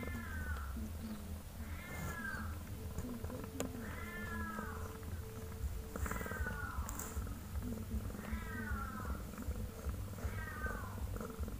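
Newborn kittens mewing while the mother cat licks and nudges them: six short, falling cries, about one every two seconds, over the low rumble of purring.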